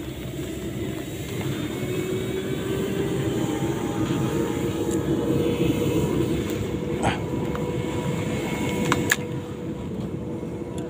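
A distant engine drone that slowly rises in pitch and swells in level toward the middle, over a low rumble. Two sharp clicks come near the end.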